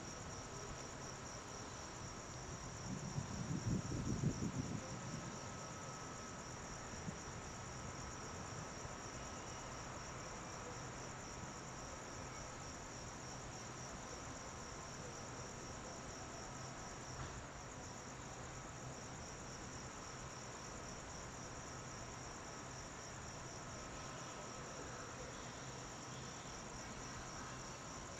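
Crickets chirping in a steady, fast-pulsing high trill, over a faint steady low hum. A brief low rumble swells and fades about three to five seconds in.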